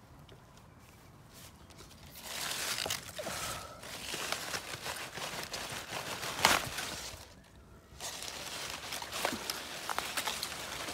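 Crisp leaves of a frilly green leaf lettuce rustling and crinkling against the phone as it is pushed in among them, in two stretches starting about two seconds in, with one sharp crackle a little after six seconds.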